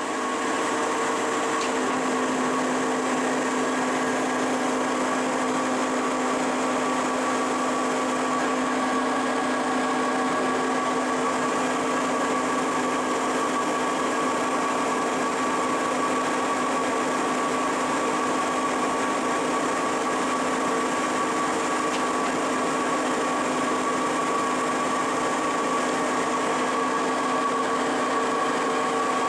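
Lucas 42B-120 horizontal boring mill running, its 4-inch spindle turning: a steady machine whine of motor and gearing with several held tones, a lower tone joining about two seconds in.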